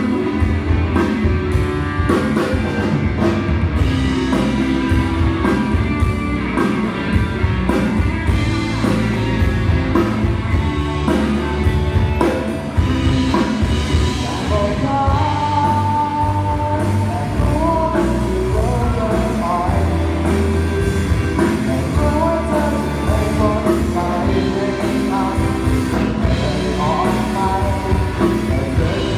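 Rock song with a steady drum-kit beat, guitar and bass, and a singer's voice carrying the melody, played at a sound check.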